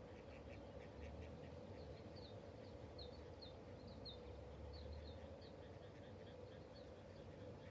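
Ducks calling faintly: a quick run of short repeated notes, then higher short chirping calls through the middle, over a steady low background hum.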